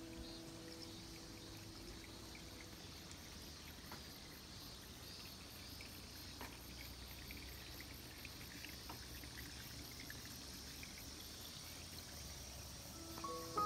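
Faint outdoor ambience of running water and chirping insects, a steady low rush with a thin high shimmer and a few soft ticks. The tail of background music fades out in the first second.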